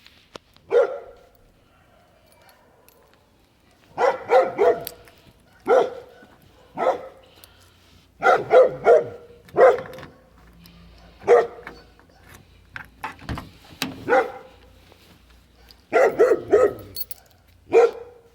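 A dog barking repeatedly: single barks and quick runs of three or four, with short pauses between them.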